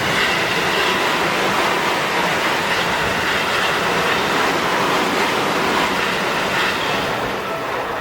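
Seibu 20000 series electric train passing close by through a level crossing. Its running noise swells in at the start, holds, and eases off near the end.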